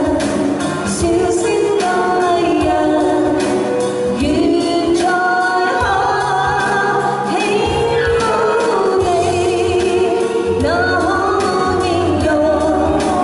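A woman singing a Cantonese pop song live, backed by electric guitar and keyboard, with several long held notes.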